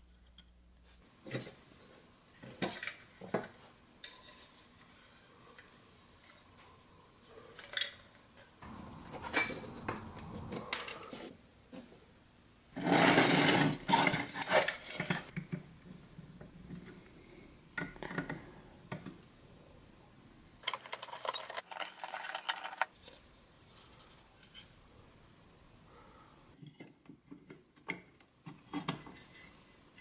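Vintage Tonka cement mixer truck's pressed-steel body being taken apart with a screwdriver and pliers: scattered metal clicks and clinks as tabs are pried and bent. About halfway through comes the loudest part, a stretch of scraping and rattling metal, and a shorter scratchy stretch follows a few seconds later.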